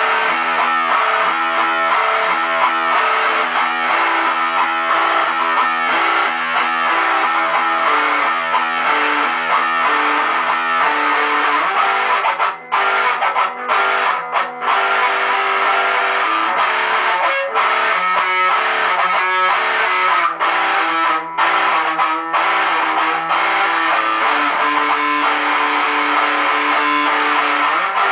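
Electric guitar played with a distorted tone in a continuous lead passage, with a few brief breaks in the playing about halfway through.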